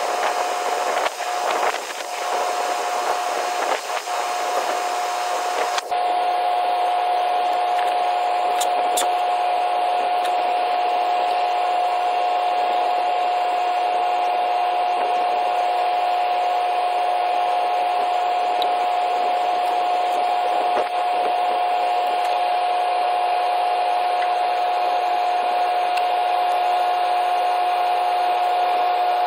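A steady machine-like hum and hiss with one constant mid-pitched tone, unchanging in level, with a few faint knocks in the first few seconds.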